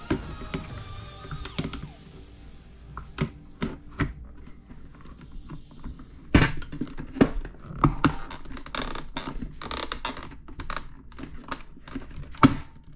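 Hard plastic helmet and its parts being handled: a string of irregular knocks, clicks and thunks, the loudest about six seconds in and near the end.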